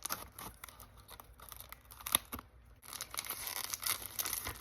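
The wrapping on a perfume box being torn and crinkled open by hand, with scattered sharp clicks and scratches at first, then denser crinkling from about three seconds in.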